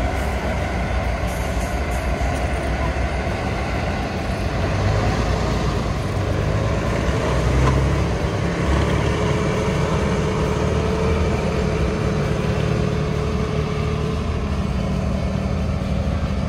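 Six-wheeled trial truck's diesel engine running hard under load as it climbs a dirt slope, swelling and easing, with a faint whine through the middle.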